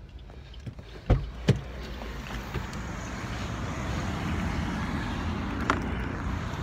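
Handling noise from a phone being carried against clothing: two sharp knocks about a second in, then a steady rushing noise, with one more knock near the end.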